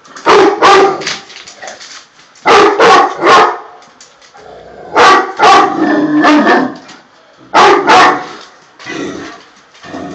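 Tosa Inu guard dogs barking deep and loud at the fence, in bursts of two or three barks every few seconds, the last bursts fainter: alarm barking at something beyond the fence.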